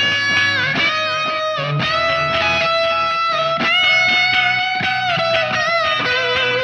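Electric guitar playing a solo line of bent notes and long notes held with vibrato over a band backing.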